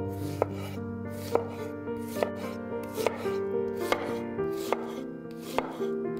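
Chef's knife slicing a halved yellow onion into half-rings on a wooden cutting board, each cut ending in a crisp tap of the blade on the board, about two a second, over background music.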